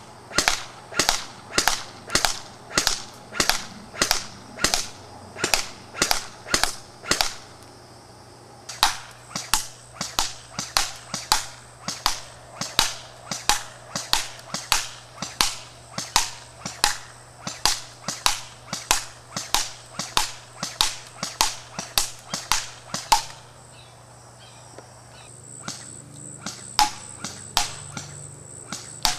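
Echo 1 G36C airsoft electric gun firing single shots on semi-auto in a long steady string, about two sharp snaps a second. There is a brief pause about eight seconds in, a longer one a few seconds before the end, then a few more shots.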